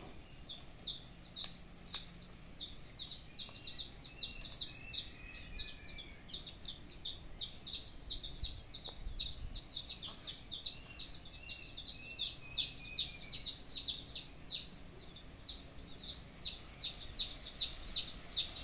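Birds chirping without a break: short, high notes that slide downward, about four a second, with a few lower, drawn-out notes in between, growing louder near the end.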